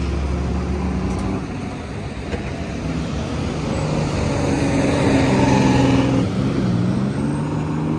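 Fire trucks pulling away: heavy truck engines running over street traffic. A deep engine hum fades about a second in, then another engine's steady drone comes up in the second half.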